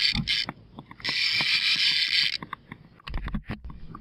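Fishing reel ratcheting in runs of about a second and a half, a dense mechanical buzz that stops and starts, while the rod is bent under load. A few sharp clicks and knocks follow about three seconds in.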